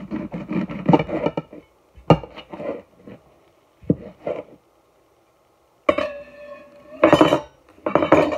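A dull kitchen knife sawing through the tough stalk end of a cooked ear of corn in its husk, in quick repeated strokes, then a few separate knocks and clinks of the knife and dish, with more clattering near the end.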